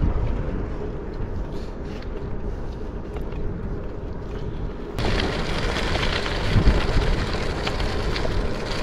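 Wind buffeting the microphone of a camera on a moving bicycle, a steady low rumble, with the hiss of tyres rolling on asphalt. About five seconds in the sound changes abruptly to a brighter hiss with small ticks.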